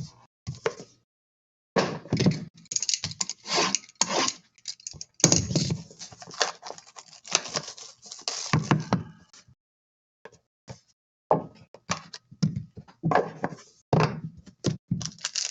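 Trading card boxes and packs handled on a table: irregular knocks, thunks and short rustles, broken by brief silences.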